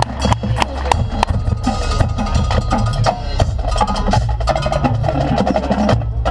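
Marching band playing, with the drumline prominent: rapid snare and bass drum strokes over sustained pitched notes from the band.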